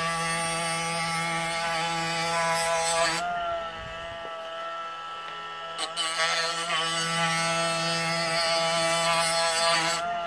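Cordless drill spinning the 500-grit diamond disc of an LGR ski-edge sharpener, grinding along a ski's steel side edge at about 88 degrees. There are two grinding passes over a steady motor whine, with a quieter spell between them about three seconds in. The motor winds down at the end.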